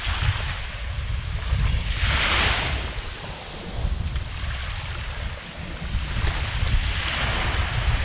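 Small waves breaking and washing up the beach, a swell of surf hiss about two seconds in and another near the end, over the low rumble of wind buffeting the microphone.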